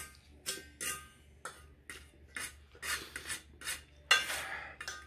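Fingers gathering pancit canton noodles on a metal serving tray: a string of short scraping, crackling sounds, with a louder, longer scrape about four seconds in.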